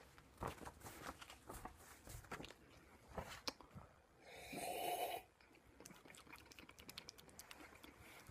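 Faint clicks and knocks of handling, and about four and a half seconds in a short slurp, about a second long, as a drink is sipped from a mug.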